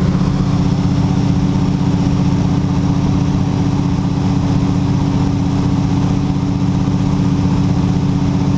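Ski-equipped de Havilland Canada DHC-2 Beaver's Pratt & Whitney R-985 radial engine and propeller running steadily at a constant, low, droning pitch.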